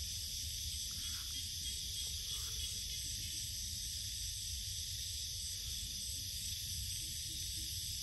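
A steady chorus of night insects, a continuous high-pitched shrill trilling, over a low rumble.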